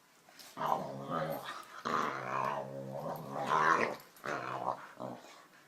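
Dog growling in a string of drawn-out growls with short breaks between them.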